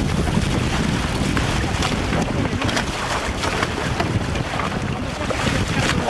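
Wind buffeting the microphone over the rush of water along the hulls of a Hobie Cat 18 catamaran under sail, with repeated splashes of spray.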